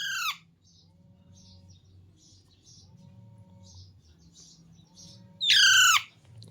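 Young pet parrot giving two loud screeches, one at the start and one about five and a half seconds in, each sliding down in pitch, with faint short chirps in between.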